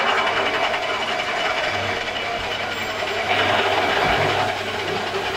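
Metal lathe running and cutting a gearbox shaft: a steady machining hiss from the tool over the hum of the lathe's motor and gearing, louder for about a second past the middle as the cut bites.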